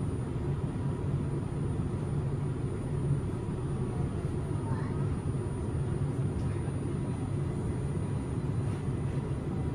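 Linimo 100-series HSST maglev train running along its guideway, heard inside the car: a steady low rumble with a faint thin high whine.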